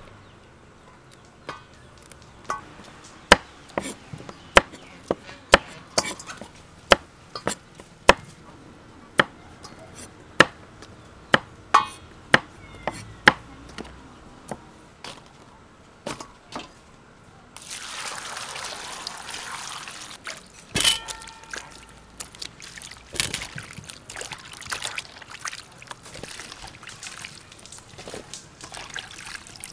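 Knife chopping vegetables on a cutting board, a run of sharp strokes about one or two a second. Then water pours for about three seconds, followed by clattering and rustling as wet vegetables are tossed in a stainless steel colander.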